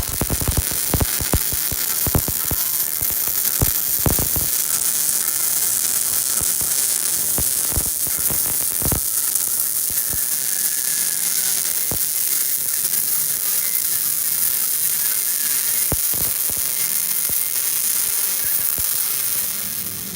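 Electric welding arc crackling steadily, with sharp pops and spatter in the first several seconds and a few later, stopping shortly before the end.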